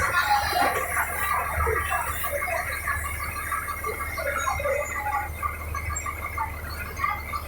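Volkswagen 17.230 bus engine running with a steady low drone, overlaid by many short, irregular high-pitched squeaks.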